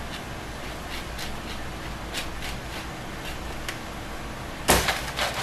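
Lemon being rubbed over a handheld grater to zest it: faint, irregular scraping strokes, then a sudden louder knock or clatter near the end.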